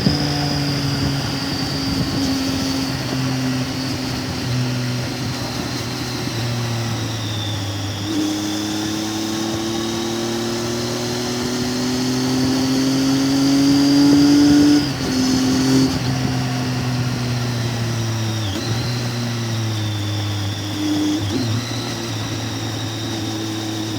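Triumph Tiger 800's three-cylinder engine running under way. Its pitch climbs steadily as the bike accelerates, then drops sharply about fifteen seconds in at a gear change, with two brief dips further on.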